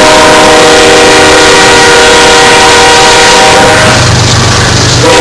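Locomotive multi-note horn sounding a long blast that cuts off a little under four seconds in, then starting again at the very end. Underneath it and throughout, the loud rumble and clatter of freight cars rolling past close by.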